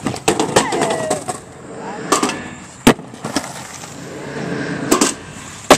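Skateboard wheels rolling on concrete and the board cracking and clattering down hard several times, the sounds of a skateboard hitting the ground in failed attempts at an eight-stair set.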